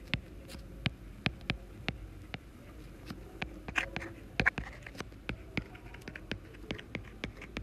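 A stylus tapping and sliding on a tablet screen while writing by hand: a string of sharp, irregular clicks, about three or four a second, with a few brief scratchy strokes in between.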